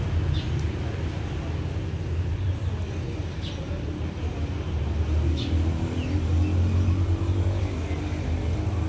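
Steady low engine rumble, growing somewhat louder about halfway through, with a few short high bird chirps.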